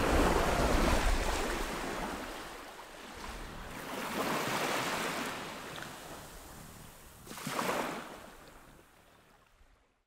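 Rushing outdoor noise of wind and water from a small boat on a canal, swelling and easing three times with a low rumble at the start, then fading out to silence near the end.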